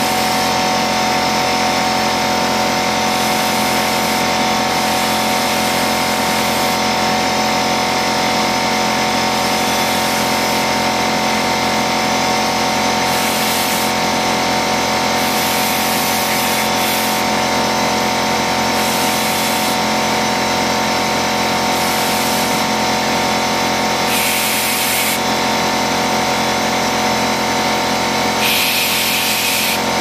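An air compressor running steadily while compressed air hisses from a blow-gun nozzle, the high hiss coming and going. The air is being used to work rubber tubing onto a typewriter feed-roller shaft, and the compressor keeps running because it was not charged beforehand.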